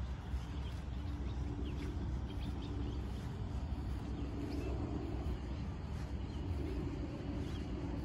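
Open-air background noise: a steady low rumble with a faint hum that swells and fades, and a few short, faint bird chirps.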